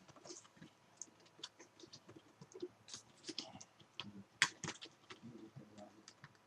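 Light, irregular clicks and scratches of a computer's internal power cable being pressed under its plastic retaining clips, with one sharper click about four and a half seconds in.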